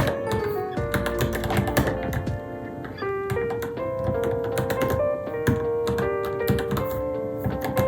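Keystrokes on a Varmilo Minilo mechanical keyboard, typed at an irregular pace, over background music with sustained pitched notes.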